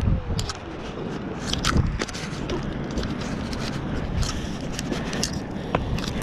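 Electric kick scooter rolling slowly over concrete, with a steady rumble and a scatter of clicks, knocks and scrapes from the scooter and the rider's jacket brushing the chest-mounted camera.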